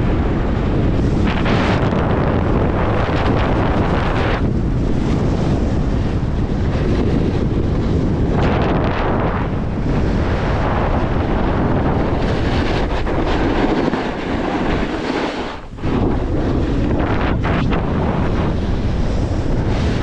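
Wind buffeting an action camera's microphone as a snowboard slides fast over packed snow, a loud continuous rush with the board's scraping underneath. It eases briefly about three-quarters of the way through, then picks up again.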